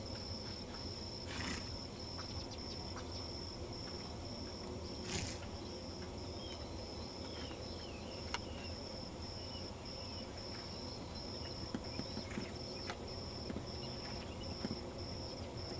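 Outdoor ambience: an insect chirping steadily in a high, evenly pulsed trill, about two pulses a second, over a low steady rumble, with a few faint clicks.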